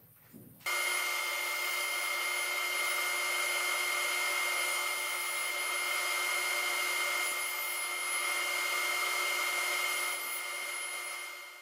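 Table saw motor and blade spinning at full speed, a steady high whine with no cutting load. It starts abruptly about a second in and begins to fade near the end.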